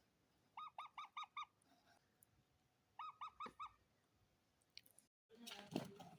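A parrot calling in two quick runs of short, harsh squawks, five and then four, about five a second. Near the end, after a break, there is rustling and scratching.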